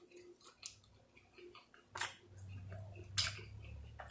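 Close-miked chewing of sauced chicken wings: soft wet mouth sounds with small clicks, and two sharp smacks about two seconds in and just past three seconds. A low hum sits under the second half.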